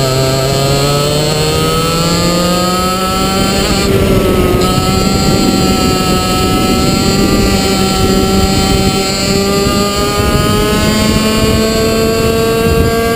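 Two-stroke racing kart engine heard onboard at full song: the pitch climbs for the first few seconds as it accelerates out of a bend, eases for a moment about four seconds in, then keeps climbing slowly down the straight.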